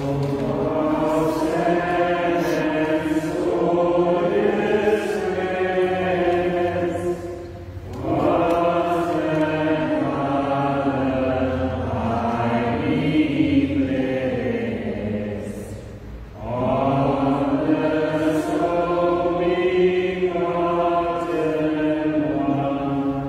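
A slow hymn verse sung in three long phrases, each about eight seconds, with short breaks between them.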